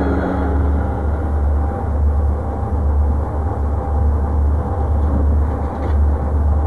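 A steady, loud low rumble with a noisy hiss above it; the held notes of eerie music fade out about a second in.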